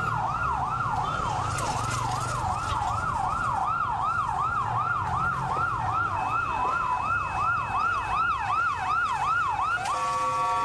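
Emergency vehicle siren in fast yelp mode, sweeping up and down about three times a second. About a second before the end it gives way to a steady held tone of several pitches.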